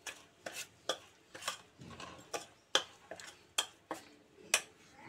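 Metal spoon scraping and clinking against a stainless steel bowl while stirring semolina, milk powder and milk into a thick wet batter, in short strokes about two a second.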